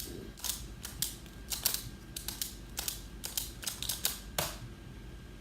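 A plastic Skewb puzzle being twisted by hand: quick, irregular clicks and clacks as its pieces snap round.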